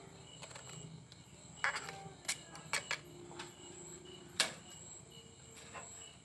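Several sharp clicks and knocks of a grilled mud clam shell against a china plate as its meat and broth are tipped out, the loudest about four seconds in. Faint steady cricket chirping underneath.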